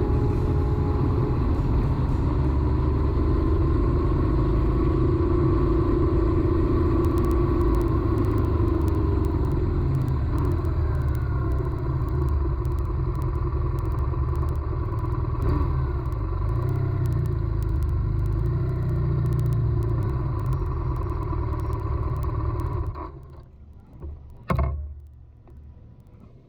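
Steady low rumble of wind and engine while travelling on the road, recorded through a GoPro fitted with a makeshift wind-noise cover, with a steady engine hum over it. About 23 seconds in the noise falls away sharply to a much quieter background, and a single knock follows soon after.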